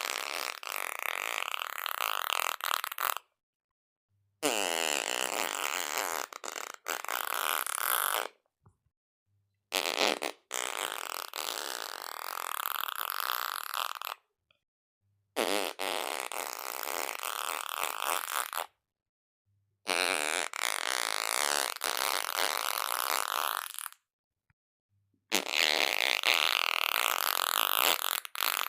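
A series of about six fart sounds, each lasting three to four seconds, separated by short gaps of silence.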